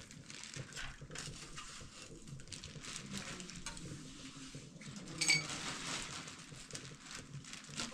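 Metal cooking utensils and pots clinking and scraping in small knocks, with one louder ringing clink about five seconds in.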